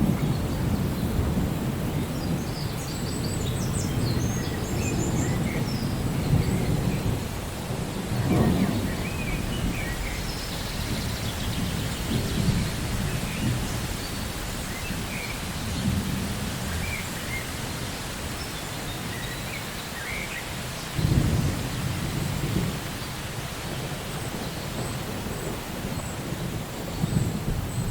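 Steady rain with deep rolling thunder, the low rumble swelling and fading several times.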